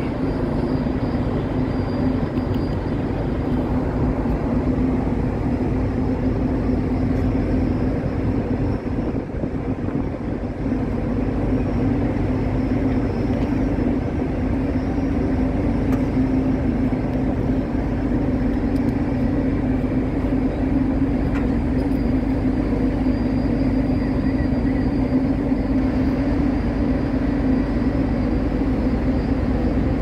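Ferry machinery running steadily as the ship manoeuvres at the quay: a constant low hum over a rushing noise.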